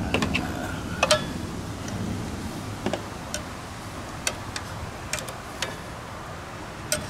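Scattered light clicks and taps of metal parts being handled on a belt sander/grinder, about one or two a second, over a low rumble of distant thunder that fades away.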